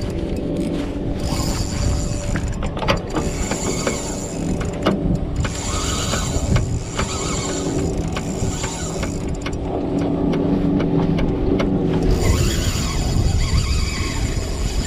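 A boat's motor running steadily with a low hum, with many short clicks and knocks scattered through it.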